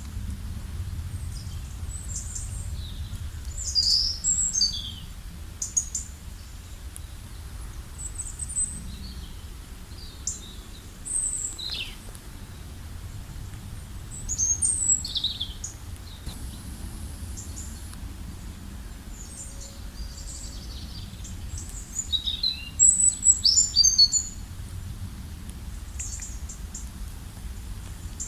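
Wild songbirds chirping and trilling in short, scattered phrases, loudest in clusters about 4, 15 and 23 seconds in, over a low steady rumble.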